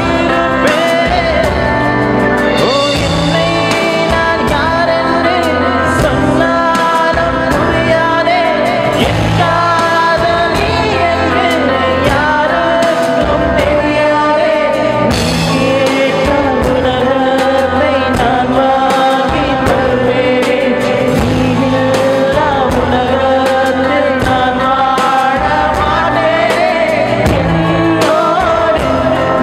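A Tamil film song sung live into a microphone over backing music with a steady beat, amplified through a stage PA sound system.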